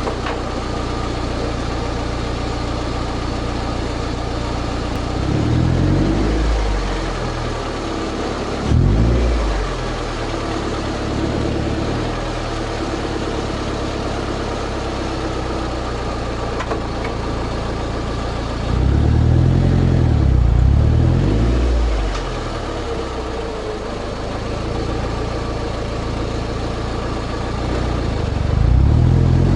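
Toyota MR2 Spyder's 1.8-litre 1ZZ four-cylinder heard through a Powerhouse Amuse titanium cat-back exhaust, close at the tailpipe. It idles steadily with a deep note and is blipped four times, about 6 and 9 seconds in, a longer rev around 19 to 22 seconds, and again near the end, the pitch rising and falling back each time.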